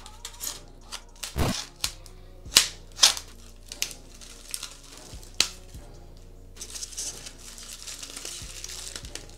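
A knife slicing the tape seam of a styrofoam box and the foam lid being pulled off, heard as a handful of sharp scrapes and cracks. Then clear plastic wrap crinkles from about six and a half seconds in, over soft background music.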